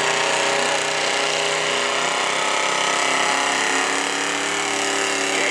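Gasoline engine of a stock square-body Chevrolet pickup running hard at steady high revs as it pulls a weight sled.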